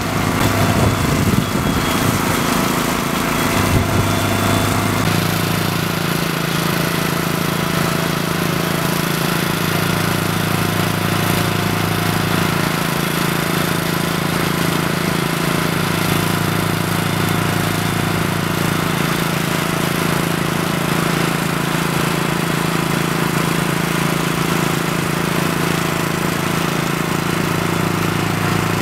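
An engine running steadily at one speed, with a low hum that drops in and out every few seconds.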